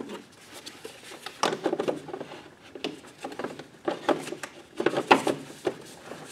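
Plastic air cleaner cover being fitted back onto a Kohler lawn tractor engine and pressed into place by hand: a string of irregular clicks and knocks of plastic on plastic.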